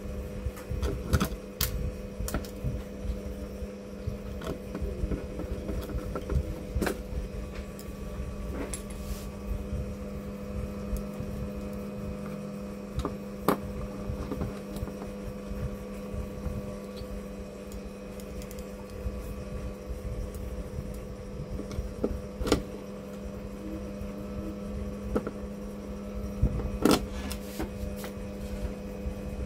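Scattered light clicks and taps of a screwdriver and hands working on a TV mainboard in its metal chassis, with a cluster of sharper clicks near the end, over a steady hum.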